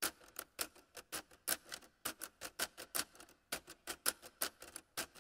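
Typing sound effect: quick, irregular clicking of keys, about five clicks a second.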